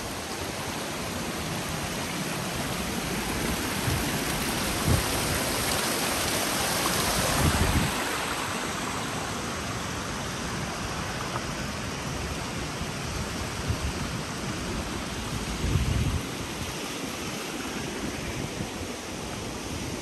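Steady rush of water from a waterfall, with a few brief gusts of wind buffeting the microphone.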